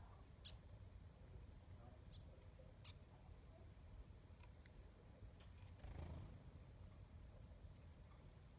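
Small birds chirping at a feeder: scattered short, high chirps, one much louder about halfway through, and a quick twittering run near the end, over near silence.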